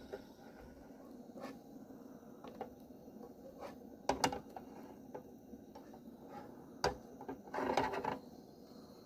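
Scattered clicks and knocks of things being handled, with a louder double knock about four seconds in, a single knock near seven seconds, and a short rattling scrape near the end.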